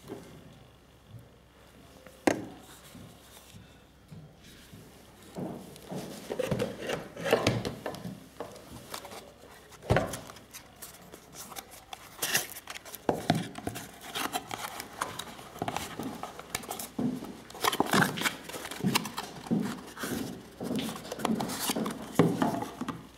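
Handling noise from unboxing: a small cardboard box and its insert rubbing, scraping and flapping in the hands, with sharp knocks as the scope and packaging are set on a wooden table. The loudest knock comes about ten seconds in.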